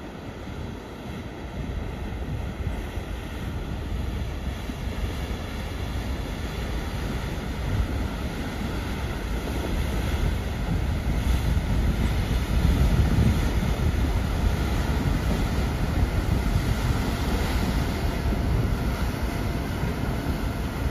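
Cruise ferry Viking Gabriella passing close by through broken sea ice: a steady low rumble of the ship and its hull pushing through the ice floes, growing louder from about ten seconds in.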